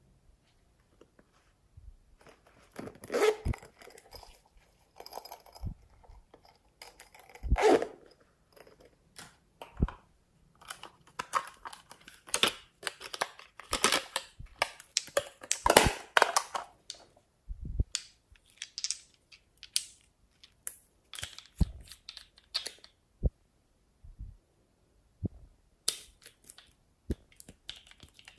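Hands handling a plastic toy makeup case and glass nail polish bottles: scattered clicks, taps and rustles, with louder knocks about three and eight seconds in and a busier run of clicking and scraping in the middle. Near the end a nail polish cap is unscrewed.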